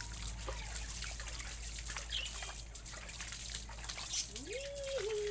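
Water splashing and trickling as it is scooped by hand over a husky puppy standing in a plastic basin of water. A little after four seconds in, a rising whine that then holds steady, from the puppy.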